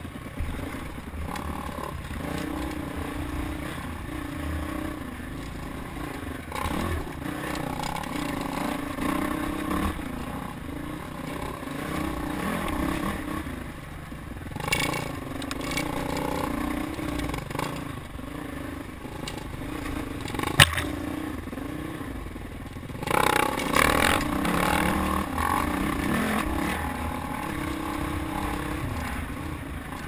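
Dirt bike engine running on a rough trail, its pitch rising and falling with the throttle, with rattling and scraping from the terrain. A single sharp knock comes about two-thirds of the way through, followed by a louder rushing noise.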